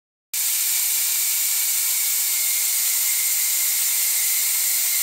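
Mist coolant sprayer's nozzle hissing steadily as compressed air atomizes coolant into a fine spray, with a faint steady whistle in the hiss. It starts abruptly about a third of a second in.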